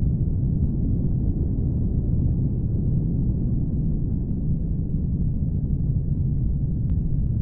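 Steady, deep rumbling drone with no pitch or rhythm, unchanging throughout.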